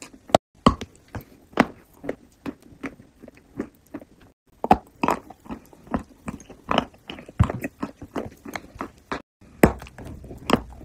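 Close-miked mouth sounds of biting into and chewing a crumbly white baked treat: irregular crisp crackles and wet smacks, with a couple of brief pauses.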